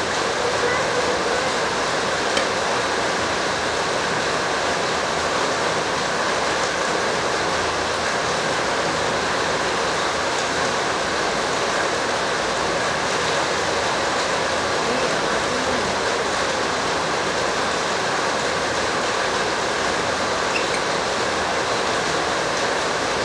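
Steady, even rushing noise.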